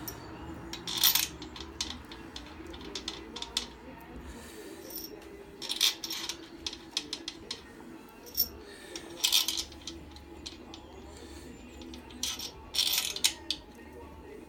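Steel bolts clinking and clicking against metal as the crankshaft main-cap bolts are handled and set into the engine block. The sound comes as scattered short clusters of sharp metallic clicks, with a steady low hum underneath.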